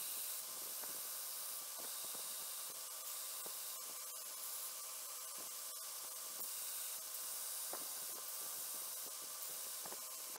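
Belt grinder running with a steady hiss, a faint steady hum under it, while a knife handle scale is ground flat against the abrasive belt.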